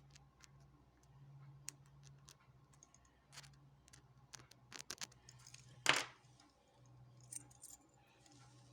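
Scattered small metallic clicks and taps from a Jedo 5-pin rim cylinder's parts being handled while the lock is taken apart, with one louder clack about six seconds in.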